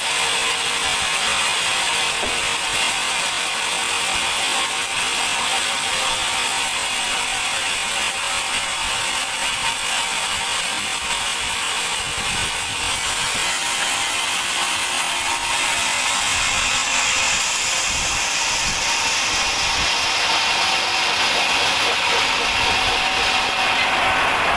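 Sawmill band saw cutting through a large teak log, a loud, steady, rattling mechanical noise with no break.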